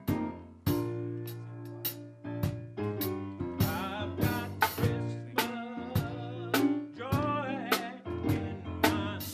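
Gospel-style band music with a steady beat of drum hits and a sustained bass line, with wavering melodic lines coming in about a third of the way through.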